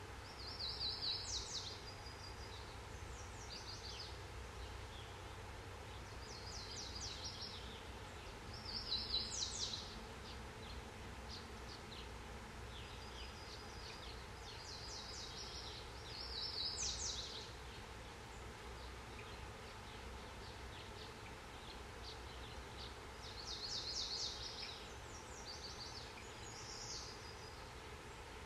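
Birds singing short, high trilled phrases every few seconds, the loudest one recurring about every seven or eight seconds, over a steady low background rumble.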